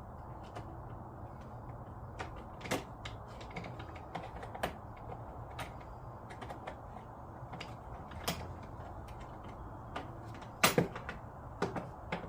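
Irregular clicks and knocks of hard plastic parts and a hand screwdriver being handled as screws are driven into a plastic bracket, over a low steady hum; the sharpest knock comes near the end.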